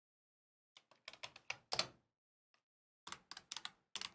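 Typing on a computer keyboard: two quick runs of keystrokes, one about a second in and another starting near the end.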